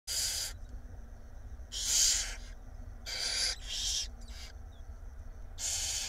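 Barn owls in a nest box giving about six short, harsh hissing calls, each under a second long and spaced roughly a second apart, over a low steady hum.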